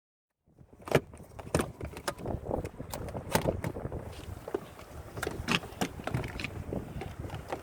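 Irregular clicks, knocks and rattles of a folding canoe being taken apart by hand, starting about half a second in.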